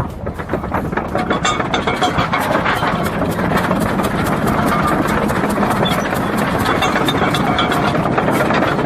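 T-100 crawler bulldozer's engine starting up after 20 years standing idle. A fast, even firing beat builds over the first couple of seconds, then runs steadily.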